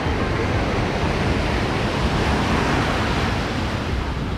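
Ocean surf washing onto the beach in a steady hiss, swelling a little about halfway through, with some wind rumbling on the microphone.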